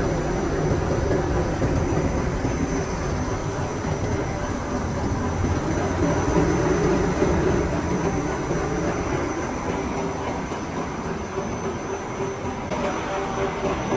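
Industrial machinery running steadily: a dense mechanical din with a low rumble, a steady hum and a thin high whine. Near the end a regular pulsing beat sets in.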